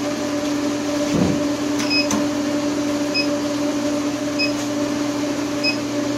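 Steady hum of a TIG water cooler's pump pushing cooling water through an induction heater's copper coil, together with the heater's cooling fan. From about two seconds in, a short high electronic beep repeats about every second and a quarter.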